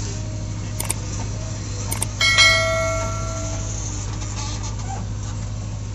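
JCB backhoe loader's diesel engine running steadily, heard from inside the cab. About two seconds in, a sharp metallic clank rings on like a bell for about a second, with a few lighter clicks around it.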